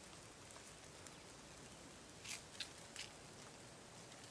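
Near silence: faint outdoor hush, with a few soft ticks about two to three seconds in.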